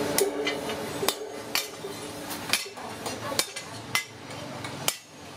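Hand hammer striking a leaf-spring steel cleaver blank on a post anvil: about eight sharp metallic blows, spaced roughly half a second to a second apart.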